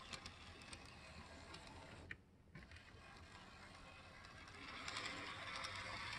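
Z-scale AZL SD70 model locomotive running on track: a faint whir from its small motor and gears with light ticking, growing louder towards the end.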